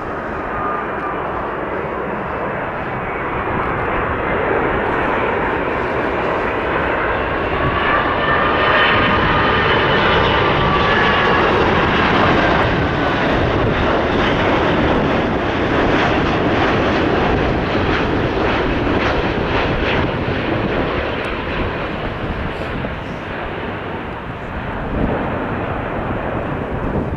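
Boeing 787-8 jet airliner on landing approach passing overhead: a steady engine rush with whining fan tones that bend in pitch, loudest about 8 to 12 seconds in, then easing as it moves away.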